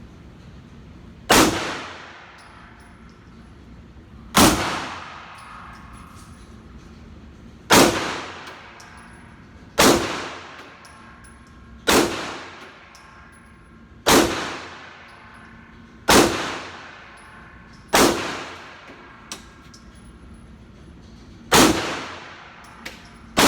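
About ten 9mm pistol shots fired one at a time, roughly every two to three seconds, each followed by a long echoing tail.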